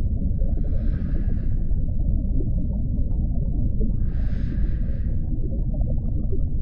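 Scuba regulator breathing over a steady deep underwater rumble: two hissing breaths, each about a second and a half long, one near the start and one about four seconds in.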